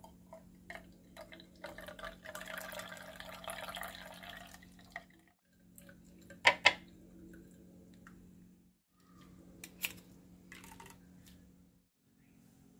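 Thick blended curry-leaf and coconut juice poured out of a steel mixer jar through a strainer into a glass, splashing for a few seconds near the start. Sharp clinks of the strainer and jar against the glass follow, the loudest a quick double clink about six and a half seconds in.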